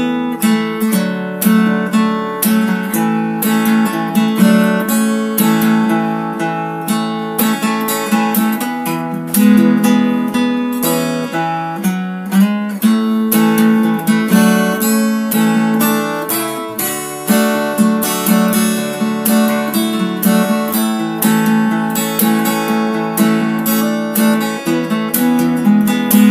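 Background music: an acoustic guitar strummed and plucked in a steady rhythm.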